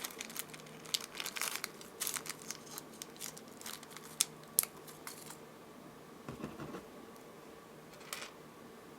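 Crinkling rustles and small clicks of hands handling jewelry supplies while picking out a crimp bead, busy for about five seconds and then mostly dying away to a few faint touches.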